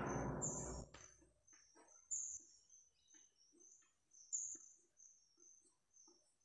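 Chalk tapping and scratching on a blackboard as short marks are written, with high chirping repeated a few times a second behind it. A loud noise at the start fades out about a second in.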